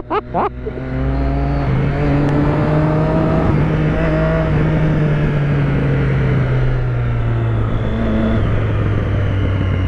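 Motorcycle engine under way: the engine note rises gently for the first few seconds, then holds steady and eases slightly near the end, over wind and road noise.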